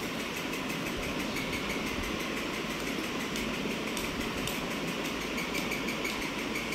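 Steady mechanical background hum, even and unbroken.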